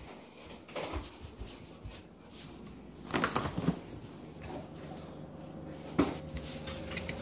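Handling noise from a phone camera being carried and moved, with several knocks and bumps about a second in, around three seconds in and near six seconds, as the whipped cream can is fetched.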